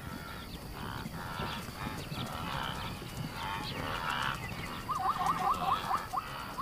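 Night-time animal calls: a few honking calls spaced under a second apart, then from about five seconds in a fast run of short, evenly repeated calls.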